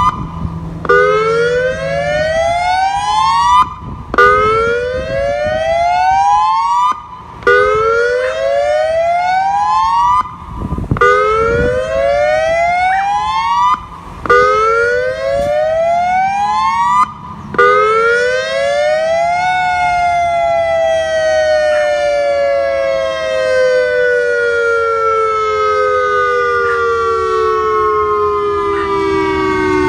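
Federal Signal Modulator 6024 electronic siren sounding its whoop tone: a rising sweep in pitch repeated about every three seconds, six times over. About two-thirds of the way through, the tone turns into one long, slow fall in pitch. In Kapolei this whoop, following the alert tone, is the hazardous-materials (HAZMAT) warning.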